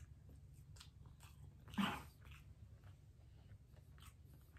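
A dog gives one short vocal sound about two seconds in, among faint clicks and rustles from crab legs being eaten.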